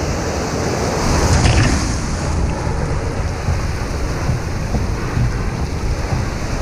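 Ocean waves breaking and whitewater rushing around a kayak at close range, with wind buffeting the microphone. The rush is loudest about a second and a half in.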